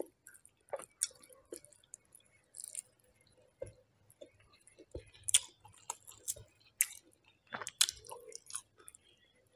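Close-up eating sounds picked up by a clip-on microphone: fingers squishing rice and smoked pork on the plate, then wet chewing and mouth clicks in scattered short ticks, the loudest about five to eight seconds in.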